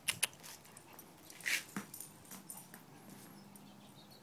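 A dachshund gives one short, high cry about a second and a half in, after a couple of sharp clicks at the start. A faint steady hum comes in near the end.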